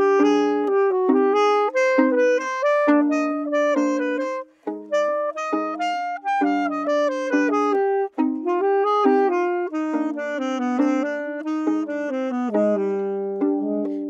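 Alto saxophone playing a melodic instrumental solo in quick runs of notes, with two short gaps, about four and a half and eight seconds in.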